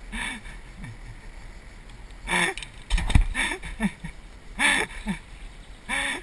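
Short, indistinct shouted calls from people's voices, several in a row, over a steady low rumble of wind on the microphone, with a low thump about three seconds in.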